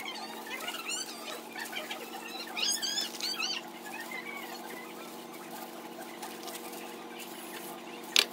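Birds chirping in short calls, about a second in and again around three seconds, over a steady low hum. A single sharp tap comes near the end.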